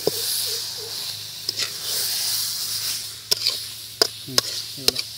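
Chicken in masala sizzling in a steel kadai while being stirred with a metal spatula. The spatula scrapes the pan and knocks against it with about four sharp clicks in the last two seconds.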